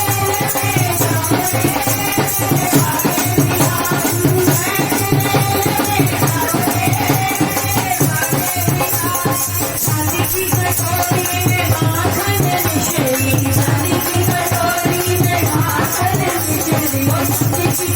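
Krishna bhajan music: a melody over a steady, dense percussion beat with shaken rattle-like accompaniment.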